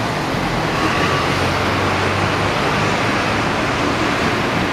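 Steady street traffic noise: a continuous wash of road noise with a low engine hum through roughly the first half.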